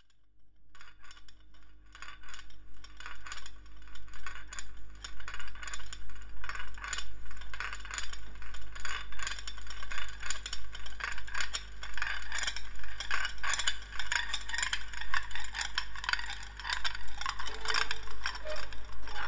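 Background music fading in, opening with a dense rattling, clicking percussion texture over a steady low drone; a pitched note enters near the end.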